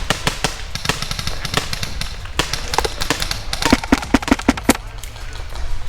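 Airsoft gunfire: many sharp cracks of shots throughout, with a quick string of about six shots in just over a second a little under four seconds in.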